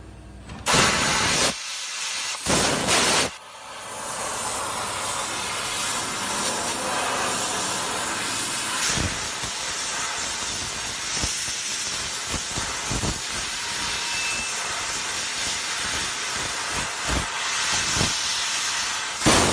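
Fiber laser cutting machine cutting 2 mm brass sheet: two loud blasts of gas from the cutting head near the start, then a steady hiss of assist gas jetting through the nozzle as it cuts, broken by a few short sharp pops, with another loud blast at the end.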